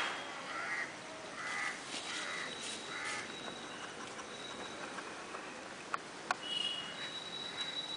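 A bird cawing, about five short harsh calls in the first few seconds, over a thin steady high-pitched tone. Two sharp clicks come about six seconds in.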